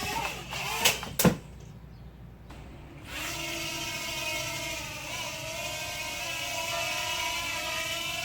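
Small toy quadcopter's electric motors and propellers whining. About a second in come two sharp knocks, like the drone striking something, and the motor whine cuts out for about two seconds. It then spins back up to a steady whine that wavers slightly in pitch.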